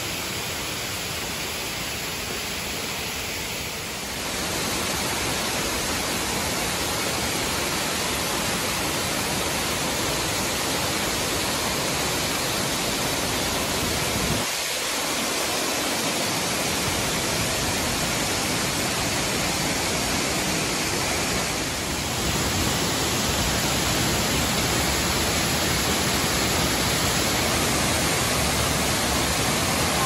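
Waterfalls pouring into a pool: a steady, dense rush of falling water. Its tone changes abruptly three times, at about four, fourteen and twenty-two seconds in.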